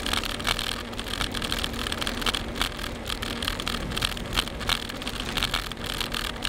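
Bicycle rolling along a cracked paved road: steady tyre and road noise with quick irregular rattles from the bike, and a car running behind it.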